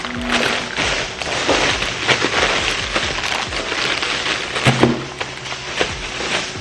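Plastic grocery bags and packaging rustling and crinkling as groceries are unpacked, a dense run of crackles throughout, over background music.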